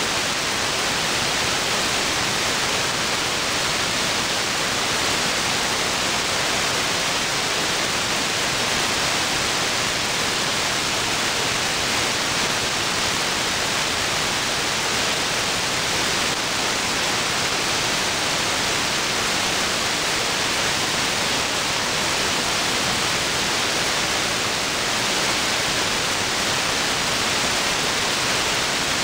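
Steady radio static: the unsquelched AM hiss of an SDRplay RSP1 software-defined receiver tuned to an air-band channel with no signal on it, the dead air between air-traffic-control transmissions.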